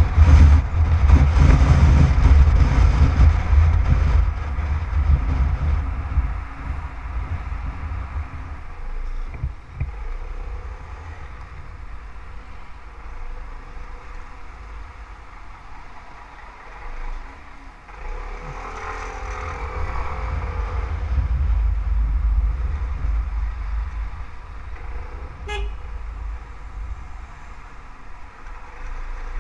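Yamaha X-City scooter on the move, with its engine and wind noise on the microphone; this is loudest in the first few seconds, then quieter as it creeps through traffic. A vehicle horn sounds about two-thirds of the way through.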